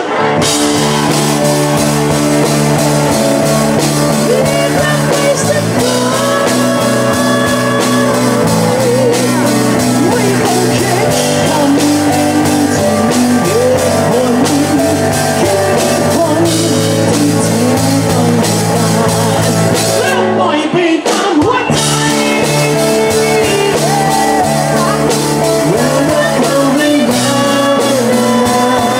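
Live pop-rock band playing: a male lead vocal sung into a handheld microphone over electric bass, electric guitar and drum kit, with a short break in the backing about two-thirds of the way through.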